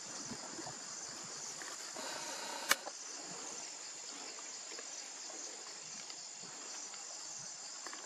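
Steady high-pitched chorus of insects, with a single sharp click about two and a half seconds in.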